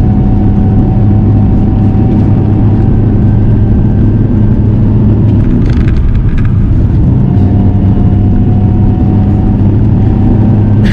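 Supercharged 1.6-litre four-cylinder of a modified R53 Mini Cooper S running under load at a steady pace, its engine drone easing briefly mid-way and then picking up again. A steady higher tone sits above the drone.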